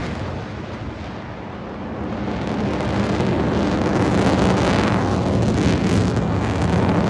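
Fighter jet engine noise passing overhead, a loud, even rush with no clear tone. It eases about a second in, then swells again over the next few seconds.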